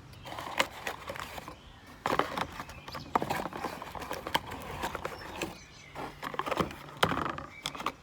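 Cardboard egg box being handled: irregular light taps and knocks.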